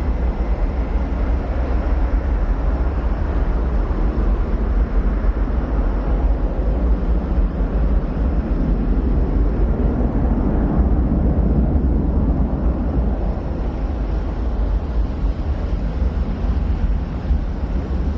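Steady, distant jet rumble of an Airbus A320-232's IAE V2500 turbofans as the airliner climbs away after takeoff, swelling a little about halfway through.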